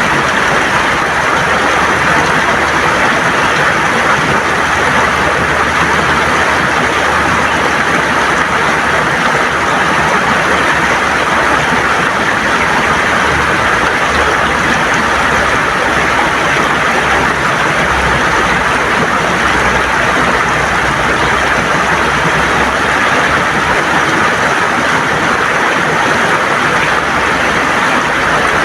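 River water gurgling and rushing over smooth stones, a steady loud flow with no pauses.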